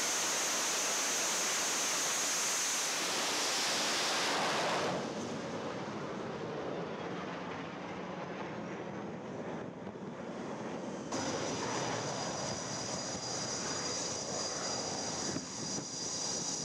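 F/A-18 Super Hornet twin jet engines at full power during carrier launches: a loud, steady rushing noise with a high whine on top. The sound changes abruptly about five and eleven seconds in, as the jets leave the deck and climb away.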